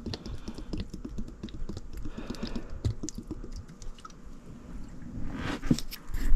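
Water poured into a newly redone HVAC condensate drain, trickling and gurgling down the line to the trap as an irregular crackle of small drips and splashes that grows louder near the end. It flows freely and easily, a sign that the drain is clear.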